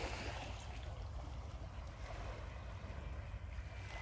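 Wind rumbling on the microphone over small sea waves washing against a rocky shore.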